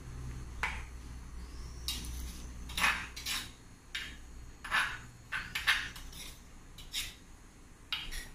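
Kitchen utensils and dishes being handled: about ten scattered clinks and clatters over a low steady hum.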